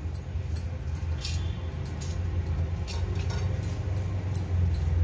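Steel spoon scraping and lightly clinking against a stainless steel plate in short repeated strokes as ghee is spread over it, over a steady low hum.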